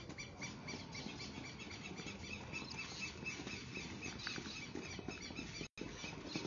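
Faint boot steps of soldiers marching on a paved parade ground, under a rapid high-pitched chirping. The sound cuts out for a moment near the end.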